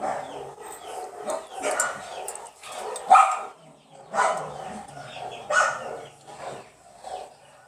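A dog barking repeatedly, with loud barks coming a second or so apart and the loudest about three seconds in.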